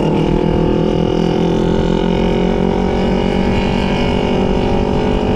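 250 cc sport motorcycle engine running while riding, holding a steady pitch.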